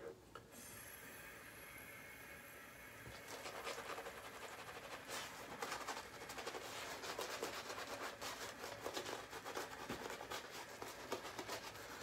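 Badger-knot shaving brush (Paladin Beehive limited edition) working shaving-soap lather on a face: a faint, quick, scratchy rubbing and crackling of wet lather that grows louder and busier from about three seconds in.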